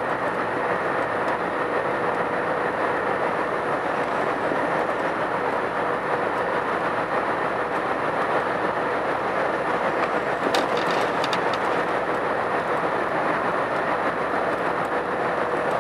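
Truck cab noise at cruising speed: steady engine and tyre noise with a faint steady hum, and a short run of sharp clicks about ten seconds in.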